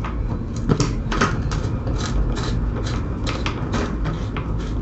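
Screwdriver clicking as it turns the air filter cover's securing screws on a Honda CBF125: a string of short, uneven ticks, about three a second.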